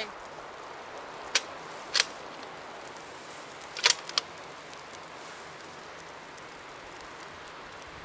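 Remington 700 bolt-action rifle being worked between shots: two sharp metallic clicks about half a second apart, then a quick group of three clicks about two seconds later, over steady wind noise.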